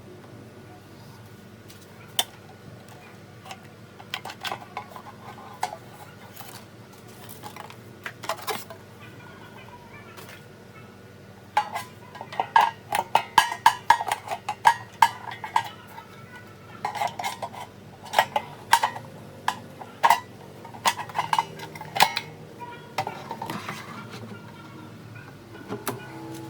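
Parts of an air fryer being handled: irregular knocks and clinks of plastic and metal, a few scattered at first, then a busy clatter from about halfway through.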